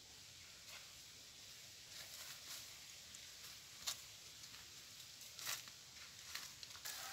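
Quiet background hiss with a few faint, scattered clicks and knocks.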